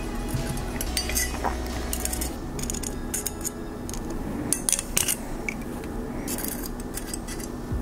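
Steel pliers clicking and clinking against stainless safety wire and a steel fishing hook as the wire is wrapped tight around the hook shank. The sharp clicks come irregularly, bunched a few at a time.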